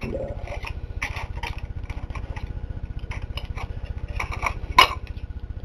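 Irregular metal clicks and clinks as hands and a tool work clutch parts in a steel Ford C4 transmission clutch drum, with one sharper click near the end. Under them runs a steady low pulsing rumble from a machine.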